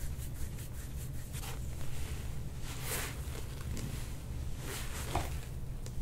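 Hands rubbing and kneading the skin and muscles of a man's neck: a few soft swishes, each about half a second, over a steady low hum.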